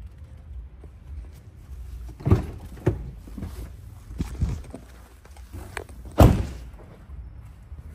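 A few dull thuds and knocks from the Lamborghini Urus SUV's doors being handled, the loudest about six seconds in, over a steady low hum.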